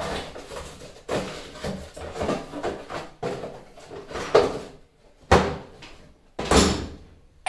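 Cardboard box of glass jars being handled and unpacked: irregular rustling and scraping of the box and its packaging, with sharp knocks, the loudest two a little past the middle and near the end.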